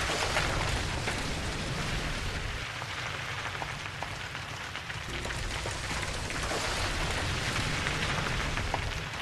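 Logo-intro sound effect of cracking, crumbling stone: a dense crackling hiss over a low rumble. The rumble weakens for a couple of seconds in the middle, then returns.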